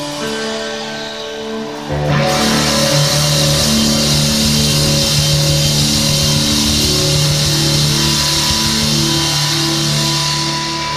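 Rock band playing live, loud and distorted: electric guitar notes ring on their own at first, then about two seconds in the full band crashes in with drums and cymbals.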